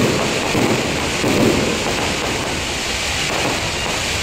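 Fireworks going off: a dense steady crackle of sparks with a few dull booms in the first second and a half.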